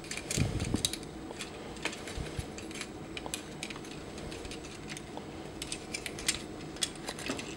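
Small plastic clicks and clacks, irregular and scattered, as the joints and panels of a Warbotron Whirlwind transforming robot figure are folded and snapped into place by hand, with a soft knock about half a second in.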